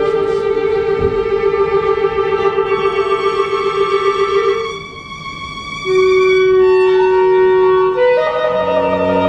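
Live contemporary chamber music from a quartet of violin, cello, clarinet and piano, built on long held notes. A close pair of notes is sustained for over four seconds, the music drops quieter about five seconds in, then a single note is held, and lower notes join near the end.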